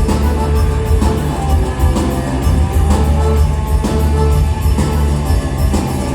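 Live rock band playing a song at full volume: a heavy bass line under sustained instrumental notes, with a steady drum beat.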